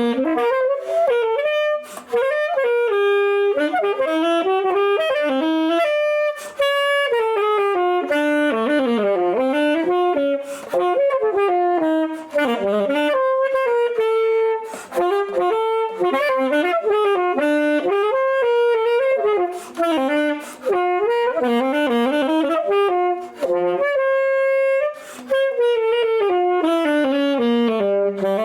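Alto saxophone playing a jazz solo line from a written arrangement, quick running phrases broken by short pauses for breath.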